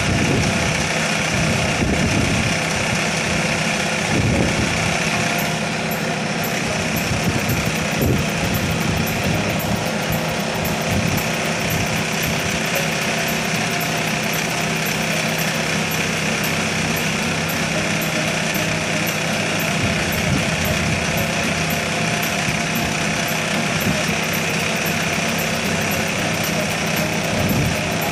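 Engine of a pile-driving rig running steadily, with its drop hammer raised and not yet released onto the test pile.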